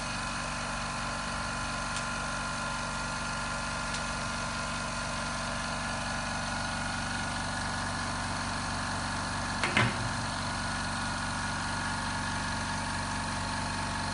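Small air compressor running steadily, pumping air into an OCA bubble-remover autoclave as the chamber pressurizes toward 0.4 to 0.6 MPa. A brief knock about ten seconds in.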